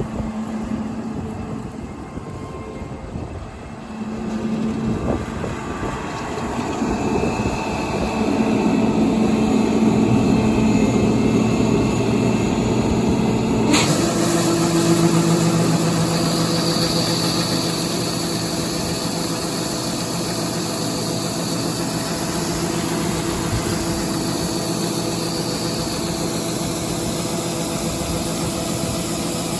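Heavy diesel farm machinery running, its engine growing louder over the first ten seconds or so. About 14 seconds in the sound changes abruptly to a steady, even engine note.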